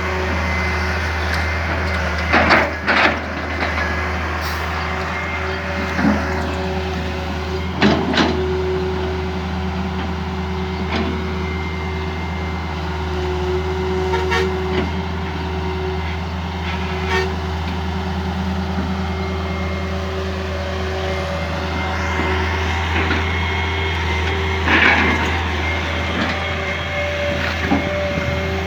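John Deere 595D excavator's diesel engine running steadily under load, with several sharp knocks and clanks scattered through, the loudest a pair of knocks about two to three seconds in and another near the end.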